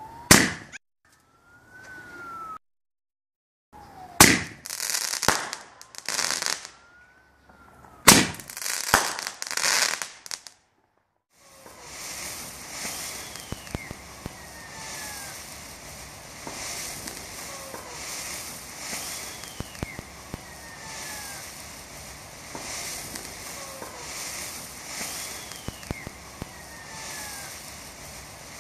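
Three loud aerial firework bursts about four seconds apart, each with a crackling tail, some preceded by a short rising whistle. From about eleven seconds in, a ground fountain firework sprays sparks with a steady hiss and light crackle, with faint falling whistles now and then.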